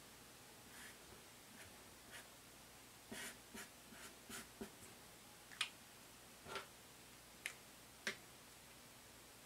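Felt-tip marker scratching on paper in a series of short strokes as a curve is drawn, faint. In the second half come four sharper clicks about a second apart.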